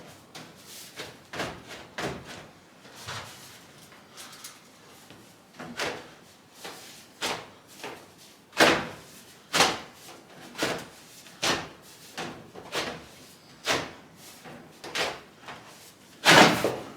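A series of knocks and bangs, irregular at first and then about one a second from about halfway through, the loudest bang near the end.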